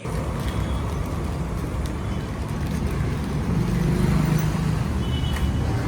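Steady motor-vehicle engine and traffic noise, dense and low-pitched, starting abruptly and swelling slightly about halfway through.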